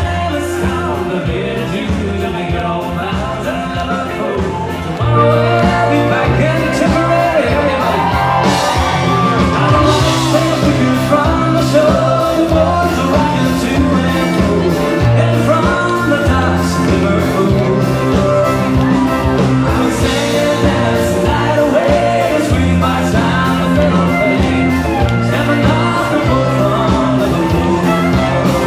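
Live band playing a country-pop song with piano accordion, electric bass and drums on a steady beat, with a male voice singing. The band gets louder about five seconds in.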